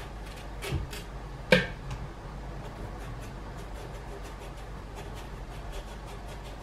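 Kitchen knife peeling strips of skin off an aubergine: a run of faint, short scraping strokes, with a sharp click about a second and a half in.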